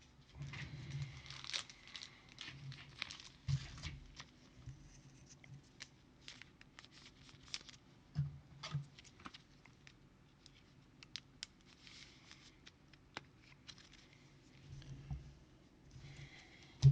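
A pack of football trading cards being opened and sorted by hand: the wrapper crinkling and tearing, and cards sliding and tapping against each other in short, scattered bursts.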